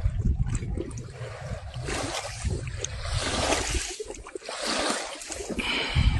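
Flowing river water, a steady rushing hiss with an uneven low rumble underneath.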